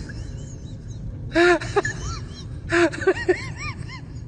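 Short pitched vocal calls, each rising and then falling, in two quick clusters of three or four about a second and a half apart, over a steady low background hum.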